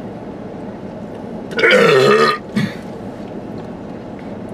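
A man belching loudly once, about a second and a half in, lasting under a second, with a brief second sound just after. A steady background hum of the car cabin runs underneath.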